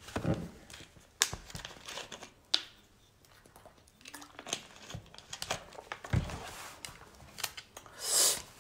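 Plastic water bottle crinkling and clicking as it is handled and drunk from, in scattered sharp crackles, with a brief loud hiss near the end.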